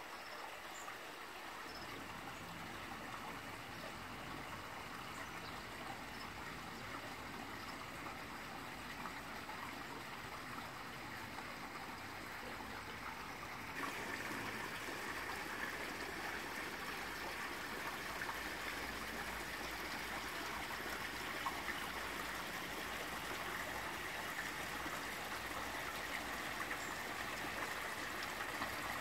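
Running water of a garden pond's water feature, trickling and splashing steadily; it grows louder about halfway through.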